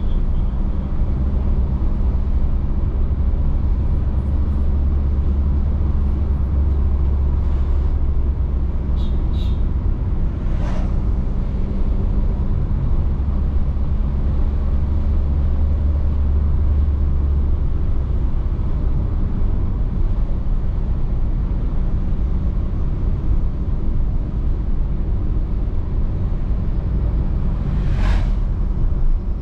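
Car driving along a road: a steady low rumble of engine and tyres, with the engine hum easing a little a bit over halfway through. Two short whooshes, one about ten seconds in and one near the end.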